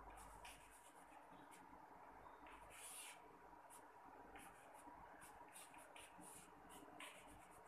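Faint chalk on a chalkboard: short, irregular scratches and taps of writing strokes.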